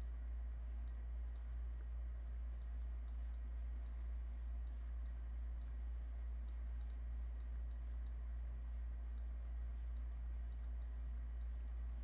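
Faint computer mouse clicks and key taps, scattered and irregular, over a steady low hum that is the loudest thing throughout.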